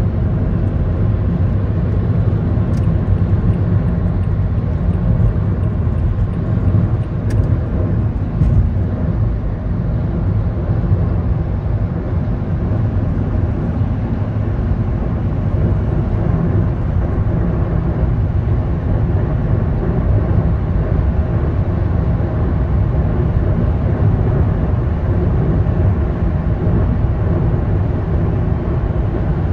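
Steady low rumble of road and engine noise inside a car's cabin while driving on a freeway, with a few faint clicks in the first ten seconds.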